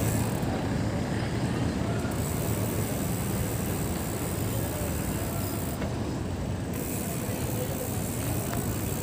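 Steady city street noise dominated by road traffic on the adjacent road, with faint voices in the background.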